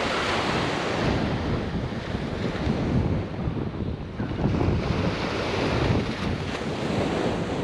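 Small waves washing onto the beach, with wind buffeting the microphone in uneven gusts.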